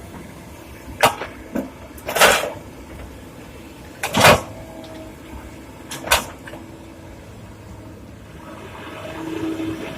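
Rock and steel knocking as an excavator loads quarry stone into a dump truck: several sharp bangs and short clattering bursts, the loudest a little over four seconds in, over a steady diesel engine drone.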